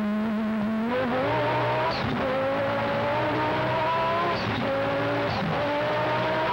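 Audi 90 quattro IMSA GTO race car's turbocharged five-cylinder engine heard from inside the cockpit, accelerating hard out of a corner. Its pitch climbs, falls sharply at each of three quick upshifts and climbs again, with a short high chirp at every shift.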